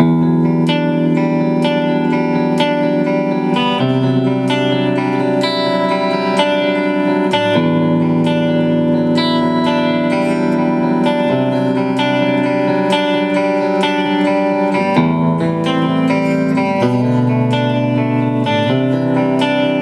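Electric guitar through a Pix Invoker active ceramic-magnet humbucker, played as picked arpeggios over a slowly changing chord progression. The notes ring into one another.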